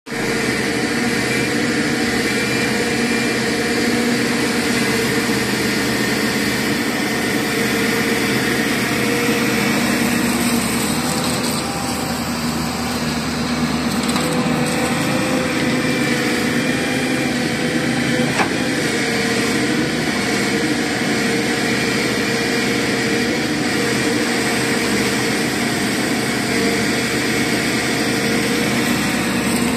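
Hyundai Robex 210W-9S wheeled excavator's diesel engine and hydraulics running steadily under digging load, a constant hum with a steady whine on top. One sharp clank about eighteen seconds in.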